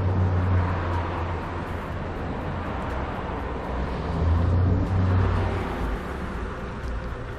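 Motor vehicle rumble: a low, steady engine hum with road noise, swelling near the start and again around four to five seconds in.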